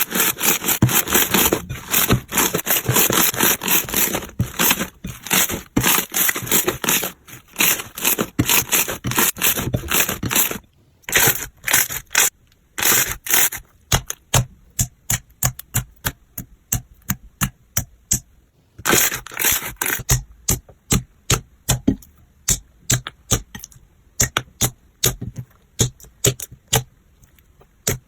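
Slime being worked, crackling and popping: a dense run of clicks for about the first ten seconds, then separate sharp pops at about two a second, with a short dense burst of crackling a little past two-thirds of the way in.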